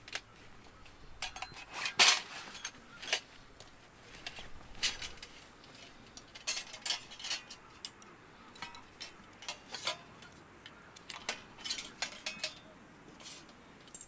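Scattered clinks and knocks of camp cookware and utensils being handled, the loudest about two seconds in.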